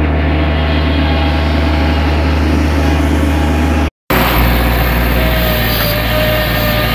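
Bobcat MT100 mini track loader's diesel engine running steadily under load. The sound drops out for a moment about four seconds in, and a thin whine comes in a second later.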